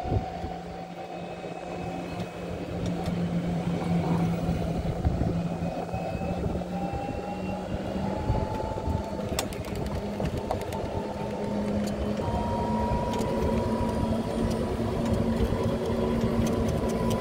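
Golf cart driving along a paved road: a steady motor whine that slowly rises in pitch, over tyre and wind noise.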